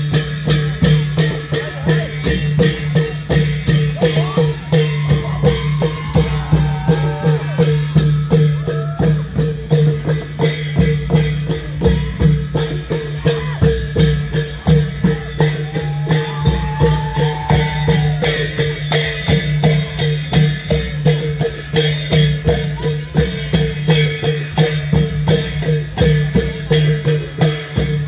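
Klong yao long-drum ensemble playing a steady, driving rhythm, with sharp strokes several times a second over the deep booming of the drums.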